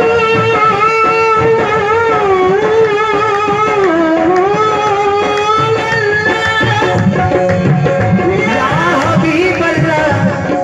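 Live qawwali music: a singer holds a long, slowly wavering note, with a hand drum playing steadily underneath.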